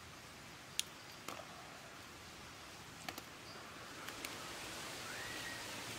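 Eggs clicking lightly as they are taken from a wicker basket and set down on a rack of wooden sticks: a few sharp, separate clicks over a faint steady hiss, with a short rising whistle near the end.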